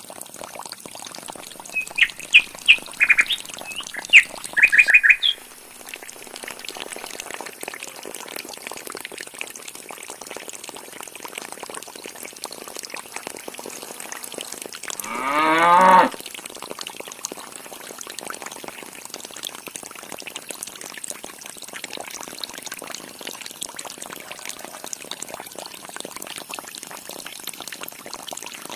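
Water pouring steadily from a thin tube into a small concrete tank, fed by a miniature DC-motor pump. Birds chirp in a few quick bursts in the first seconds. About halfway through there is one loud animal call of about a second that rises in pitch.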